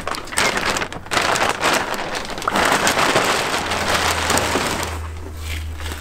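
Clear plastic bag crinkling and rustling as it is pulled off a bicycle frame, a dense crackle that thins out near the end.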